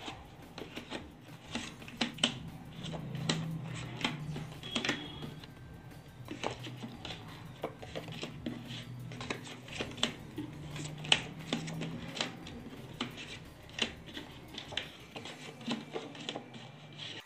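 Playing cards being slapped and flicked down onto piles on a tabletop in quick, irregular succession, many small snaps and clicks, with the rustle of cards handled in the hand.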